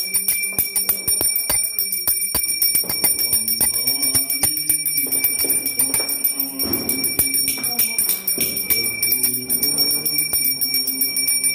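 Small brass puja hand bell rung rapidly and continuously during aarti, a steady high ringing.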